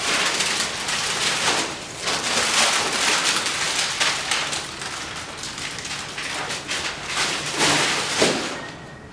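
Long cardboard shipping box in plastic wrap rustling and scraping as it is lifted and carried, with a louder knock a little after eight seconds.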